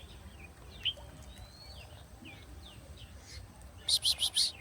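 Birds calling, with short sweeping chirps scattered through, then about four seconds in a loud, rapid run of four or five harsh notes.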